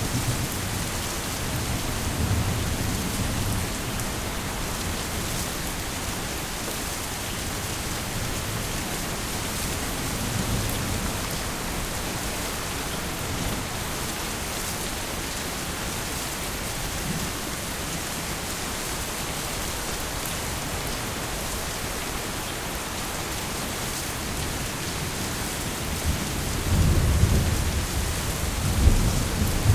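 Heavy rain falling steadily, with low rolls of thunder a couple of seconds in and around a third of the way through, and louder rolls of thunder near the end.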